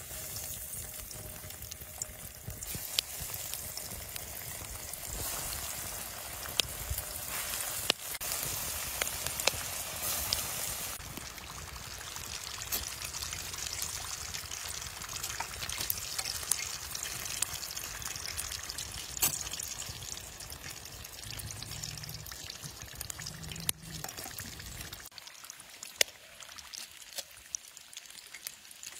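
Breaded chicken nuggets deep-frying in hot oil in a pan: a steady sizzle dotted with sharp crackles and pops.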